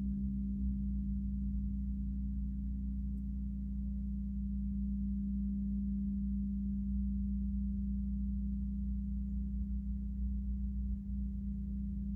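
A single steady low ringing tone from a gong-bath metal instrument, held without a break and with no new strikes, over a low rumble.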